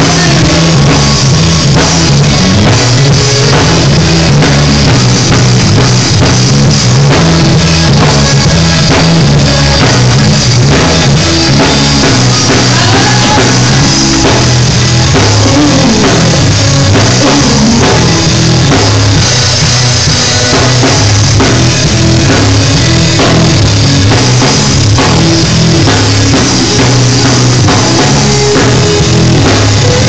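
Live gospel quartet band playing loudly, with a drum kit keeping a steady beat under the other instruments.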